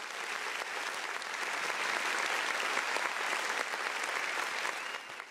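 Audience applauding. The clapping swells over the first couple of seconds and dies away near the end.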